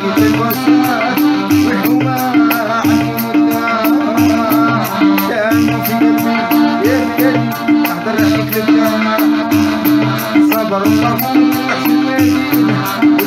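Piano accordion playing a wahrani melody over a rhythm backing, with a shaker ticking about four times a second and a pulsing bass beat.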